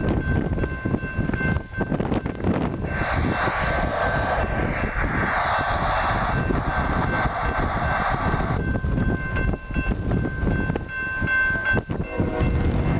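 Wind buffeting the microphone, and a distant freight train's lead locomotive, a GE ES44AC, sounding its horn in one long blast of about five seconds starting some three seconds in. The horn starts again near the end.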